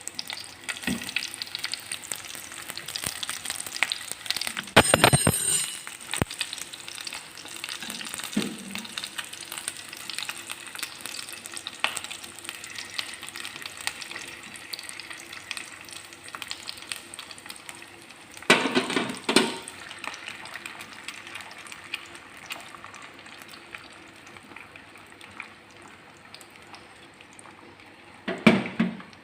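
Eggs frying in butter in a pan, a steady sizzle full of small crackles and pops. A few louder clatters stand out about 5 seconds in, around 19 seconds and near the end, and the sizzle thins out in the last few seconds.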